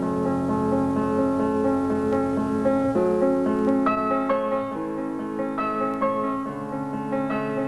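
Background piano music: sustained notes and chords, changing about every second, with a new chord about three seconds in.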